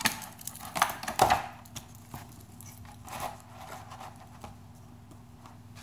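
Clear plastic packaging rustling and crinkling as a small metal phone tripod is handled and its legs spread, with the loudest crinkles about a second in and fainter handling noises after.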